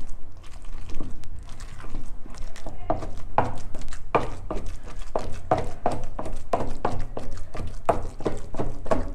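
A pestle pounding cooked Anishi (fermented taro leaves) moistened with hot water into a paste, in a steady run of dull knocks, two or three a second, getting stronger about three seconds in.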